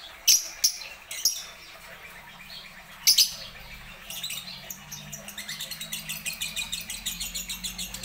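Caged lovebirds calling: a few loud, shrill squawks in the first few seconds, then from about four seconds in a fast, steady chatter of short high notes, about five a second.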